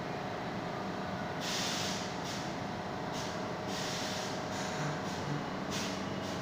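Subway train's air brakes hissing in short bursts, about six times, over a steady rumble and a faint constant hum.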